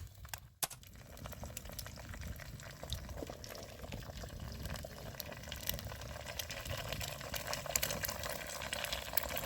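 Eggs frying in a pan over an open campfire: a steady sizzle and bubbling with many small crackles that grow denser toward the end.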